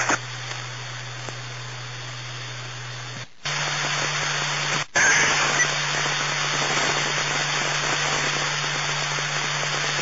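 Police scanner radio static: an open channel carrying steady hiss and a low hum with no voice. It cuts out briefly about three seconds in, comes back louder, and drops out once more for a moment near five seconds, like the squelch closing between keyed transmissions.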